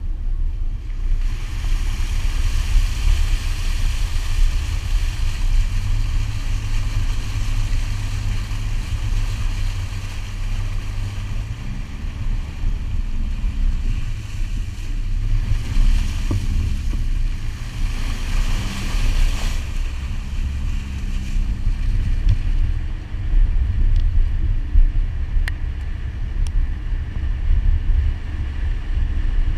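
Subaru Forester's flat-four engine running under load as the car drives through shallow water on sand, with a steady low rumble of engine and wind buffeting on the window-mounted camera. Water spray hisses against the car for about two-thirds of the stretch, then stops. Midway the engine note rises and falls several times.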